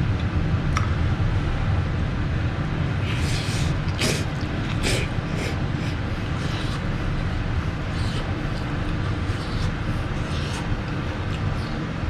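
Eating sounds of instant ramen noodles being slurped and chewed: short, irregular wet bursts come every second or so over a steady low hum.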